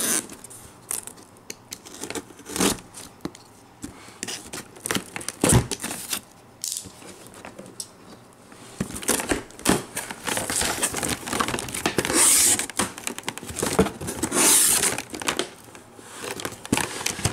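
A box cutter slitting the packing tape along a cardboard shipping case's seam, then tape and cardboard flaps tearing and scraping as the box is pulled open, with two longer, louder rasps in the second half.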